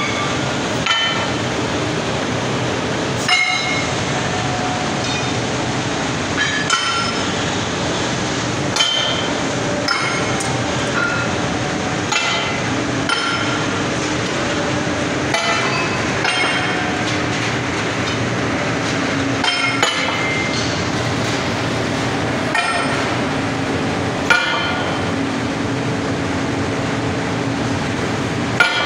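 Steel billets clanking against one another as they are shifted, irregular sharp metallic knocks every couple of seconds, each ringing briefly. Under them runs a steady machinery hum.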